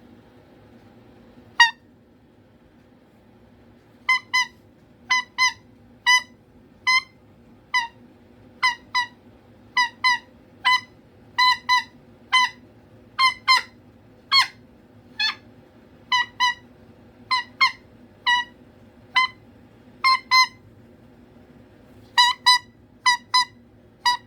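Cockatoo giving short, sharp, pitched calls to get attention: a single call about a second and a half in, then a long run of them, often in pairs, roughly one a second.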